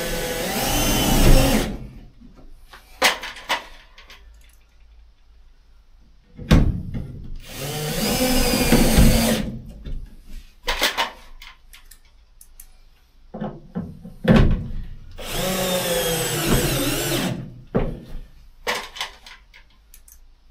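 Cordless drill-driver running in three spells of two to three seconds each, its motor pitch rising and falling under load as it fastens a trim panel to the van's sheet-metal pillar. Short clicks and knocks of handling come between the spells.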